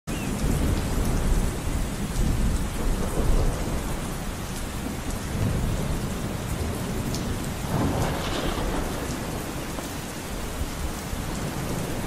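Steady rain with a low rumble of thunder, the rumble loudest in the first few seconds and swelling again briefly about eight seconds in.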